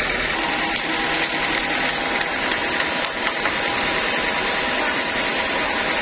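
Band sawmill running steadily, a continuous machine drone with a few light knocks over it.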